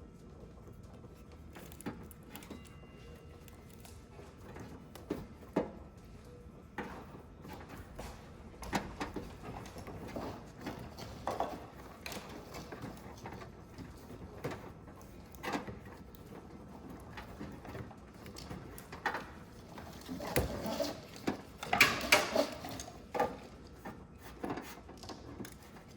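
Scattered clicks, knocks and rattles of hand work on a car's wiring and fuse box, growing busier and louder about twenty seconds in.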